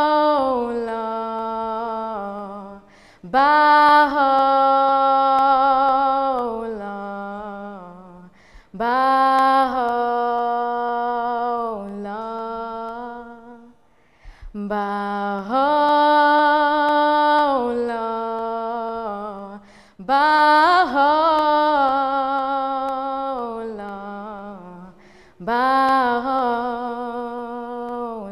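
A solo voice singing slowly and unaccompanied, in about six long held phrases of roughly five seconds each with brief breaths between, with wavering ornaments on the held notes.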